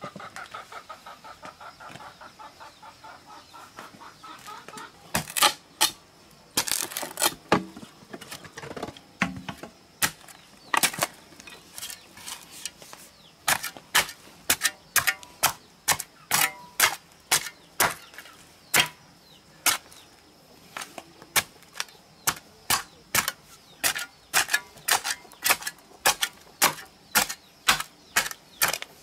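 A hen clucking for the first few seconds. Then a steel shovel blade chopping into a hard clay bank, sharp strikes that are irregular at first and settle to about two a second, with loosened dirt falling.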